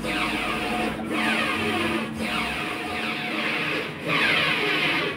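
Flatbed UV printer running, its print-head carriage travelling back and forth over a WPC door panel as it prints, with brief dips in the sound every second or two.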